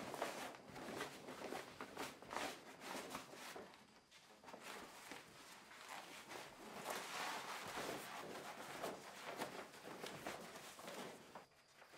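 A large white plastic sheet being pulled off its roll and spread out, rustling and crackling in irregular bursts, with footsteps as the worker moves along it.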